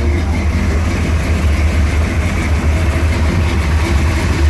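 Truck engine idling: a steady low drone.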